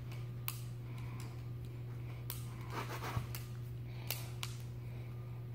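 Balisong (butterfly-knife) pen being flipped: irregular sharp clicks and clacks as its handles swing and knock together, with a brief rustle about three seconds in. A steady low hum lies under it.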